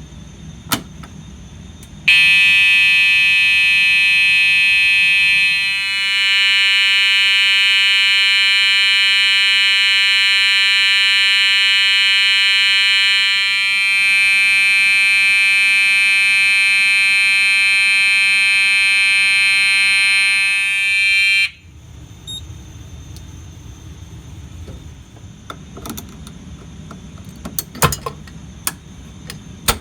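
A sharp click, then an Edwards 892-2B horn-strobe sounds its steady pre-Integrity horn tone for about twenty seconds before cutting off abruptly. A few faint clicks and knocks follow near the end.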